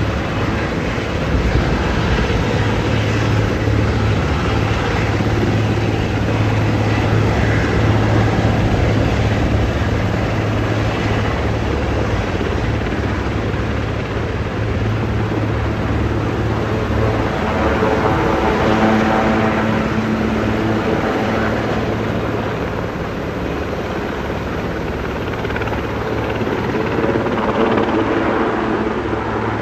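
Sikorsky VH-3D Sea King helicopter lifting off and climbing away, its rotors and twin turbine engines making a loud, steady noise. A humming tone rises out of it about two-thirds of the way through.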